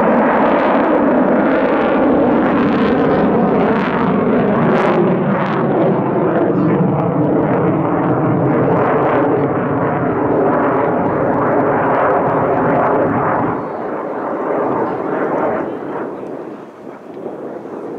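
Loud jet noise from a MiG-35 fighter's twin Klimov RD-33MKV turbofans as it flies an aerobatic display overhead, with a ragged, crackling texture. The sound drops off about 13 seconds in and fades further near the end as the jet moves away.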